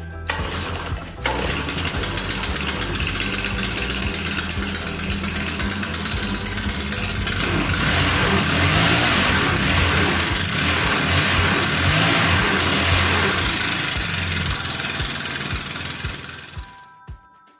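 Stihl BR 600 backpack leaf blower's 4-MIX engine running with the blower's rush of air. It grows louder around the middle as the throttle is opened, then dies away near the end as it shuts off.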